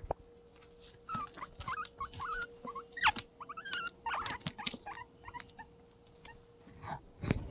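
Guinea pig giving a run of short, wavering squeaks, stopping about two-thirds of the way through, with scattered clicks and rustling close to the microphone.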